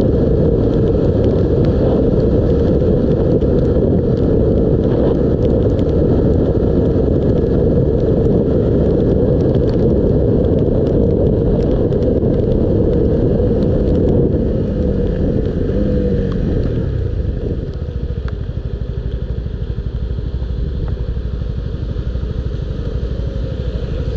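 Honda 125cc motorcycle running at road speed on a wet road, its engine note under heavy wind and road noise. About two-thirds of the way through, the engine note falls away as the bike slows, and it then runs quieter at low speed.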